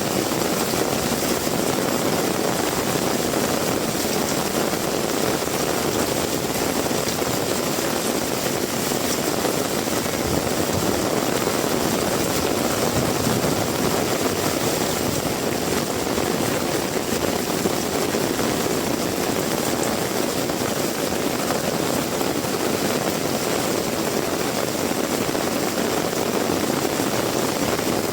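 Heavy rain pouring down steadily: a dense, even rushing noise with no breaks or sudden sounds.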